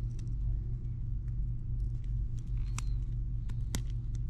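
Steady low electrical hum with a few sharp, light clicks as the loosened watch screen and small repair tools are handled.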